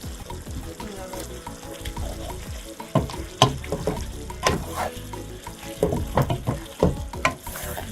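Spoon stirring in a cooking pot of steaming meat and fish, knocking against the pot in a run of sharp clinks and scrapes from about three seconds in.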